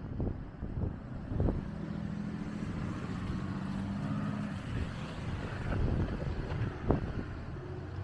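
Road traffic: a car's engine gives a steady hum for a couple of seconds over a low traffic rumble. Several short thumps come in the first second and a half, and a sharper one, the loudest sound, comes near the end.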